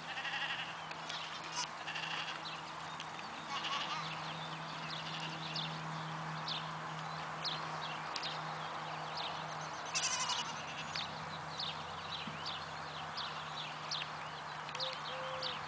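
Cashmere kid goats bleating now and then in high voices, with a louder bleat about ten seconds in, over steady bird chirping.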